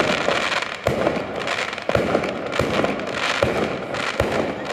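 Firework battery by Pirotecnica Di Ponio going off: a dense, continuous rattle of firecrackers with louder bangs about once a second.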